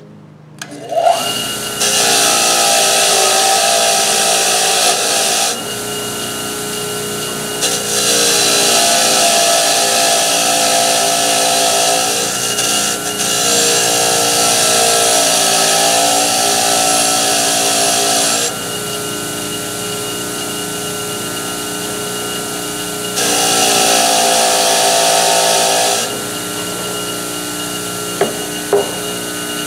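Bench grinder with a wire wheel spinning up, then running steadily. A steel hatchet head is pressed against the wire wheel in three long spells, each a loud hiss of wire brushing the metal, with the motor's hum alone in between.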